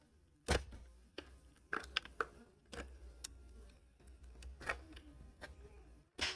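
Scattered light clicks, taps and rustles of hands handling an opened lithium-ion e-bike battery pack, fingers and a small tool pressing and prying at the taped cell block.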